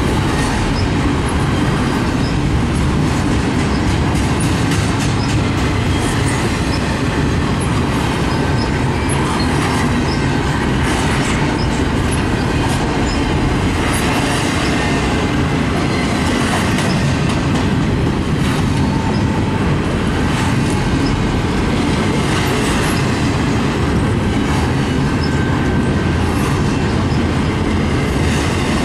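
Double-stack intermodal freight train's well cars rolling past close by: a steady rumble of steel wheels on rail, with scattered clicks and occasional short, high wheel squeals.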